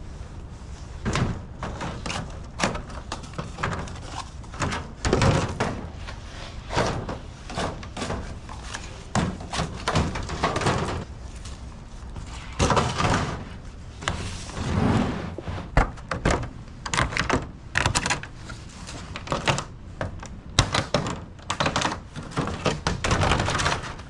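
Hard plastic nursery trays knocking and clattering as they are lifted, nested into other trays and set down, with irregular thunks throughout.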